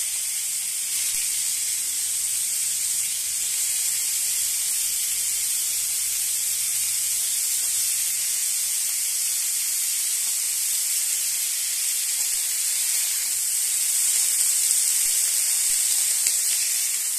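Lightly steamed cauliflower florets sizzling as they fry in hot oil in a steel kadai: a steady hiss that gets a little louder near the end.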